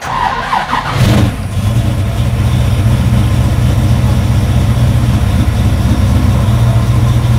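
Pontiac V8 engine cranked by the starter for about a second, catching and settling into a steady idle near 900 rpm. The battery voltage stays below 12 volts while it runs, so the alternator is not charging, which the owner takes as the sign that the alternator is bad.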